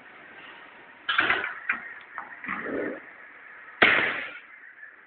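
Sharp knocks and clattering from a miniature bowling lane, each dying away quickly over a steady hum: one about a second in, a couple of light clicks, a duller thud, then the loudest knock about four seconds in.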